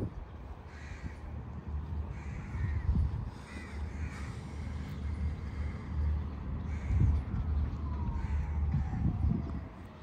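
Crows cawing again and again, several short calls, over a steady low rumble with a few dull thumps. Near the end a faint single tone slides slowly down in pitch.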